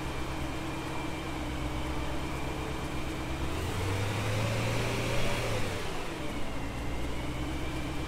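BMW E92 M3's S65 4.0-litre V8 idling, blipped up in revs about halfway through and settling back to idle. The idle is lumpy from a misfire on cylinder 6 that new coils and plugs have not cured.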